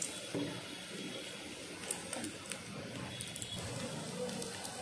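Batter-coated beetroot bondas deep-frying in hot oil: a steady sizzle with scattered small crackles and pops.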